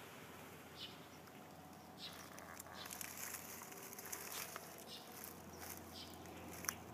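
Faint outdoor quiet with a few short bird chirps in the first two seconds, then soft crackly rustling from about two and a half seconds in, and one sharp click near the end.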